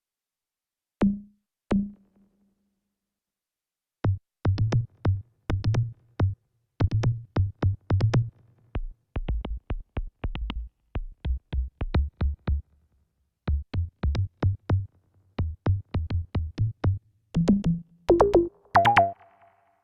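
Fred's Lab Manatee synthesizer playing a drum-like preset: two single hits, then a rhythmic run of short percussive notes with deep low thumps, ending in a quick roll of higher notes.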